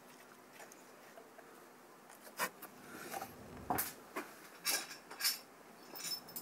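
Metal hand tools and bolts being handled while fitting a water pump: a handful of sharp clinks and light scrapes, the loudest in the second half.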